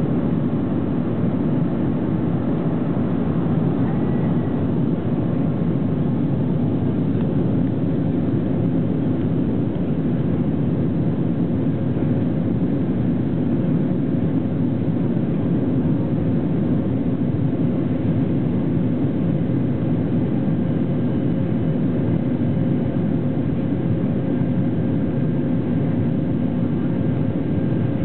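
Jet airliner's engines at takeoff power, heard from inside the cabin over the wing as the plane leaves the runway and climbs: a loud, steady, deep rumble of engine and air noise, with a faint steady hum rising above it partway through.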